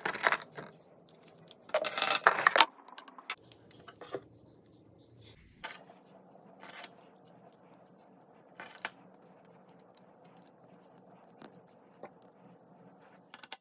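Handling noises: scattered clicks and light rattles of small hard parts being moved and set down, busiest in the first few seconds, then only occasional clicks.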